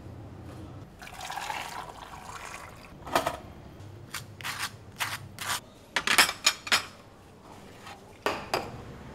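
Breakfast being served: a drink poured into a cup, rising as it fills, then a series of sharp clinks and taps of spoons against cups and crockery, the loudest a quick cluster a little past halfway, with two taps near the end as soft-boiled eggs are cracked.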